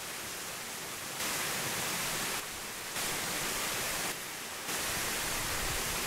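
Steady, even hiss with no distinct events. Its level steps abruptly up and down several times.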